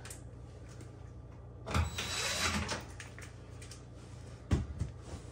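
Cordless drill-driver running for about a second, driving a screw back into the oven's control panel through an extension bit. A single low knock follows near the end.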